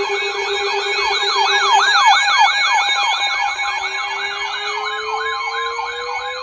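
Several sirens sounding at once: rapid yelping sweeps, about four a second, over steady alert tones. A low siren tone starts to wind up slowly about halfway through.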